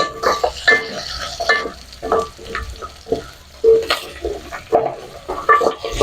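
A spoon stirring bones, onions and carrots frying in a pot: repeated irregular scrapes and knocks against the pot, some ringing briefly, over steady sizzling.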